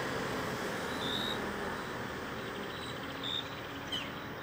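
Steady outdoor background hiss, with a few short high-pitched peeps about a second in and again near the end.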